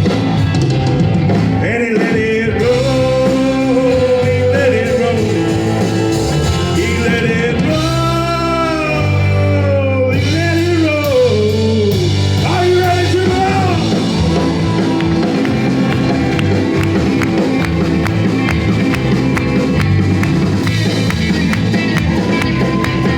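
Live rock band with electric guitars, bass and drums playing a song, with a lead vocal singing long, bending notes over the first half; from about the middle on the band plays on without the voice.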